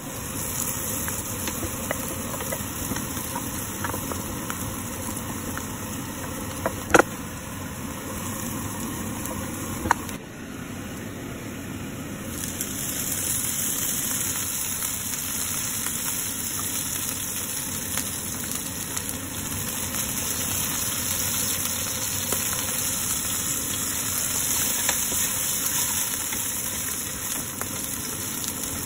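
Garlic and mushrooms sizzling in hot oil in a frying pan, a steady hiss that grows louder about twelve seconds in. Two sharp knocks sound, about seven and ten seconds in.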